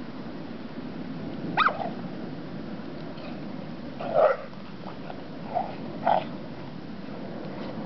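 Airedale terrier and Chesapeake Bay retriever play-fighting, giving four short vocal sounds: a high yelp about a second and a half in, a louder bark around four seconds, and two quick short barks near six seconds.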